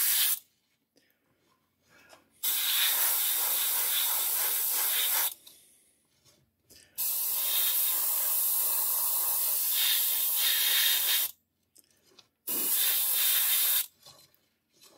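Airbrush spraying primer in short bursts: a steady hiss of air and paint from the nozzle that starts and stops as the trigger is pressed and released. One burst ends just after the start, then three more follow, the longest about four seconds.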